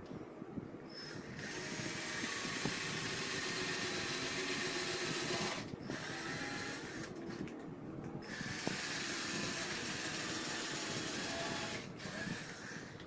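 Cordless drill running into the edge of a plywood panel in two long runs of about four seconds each, with a short burst between them.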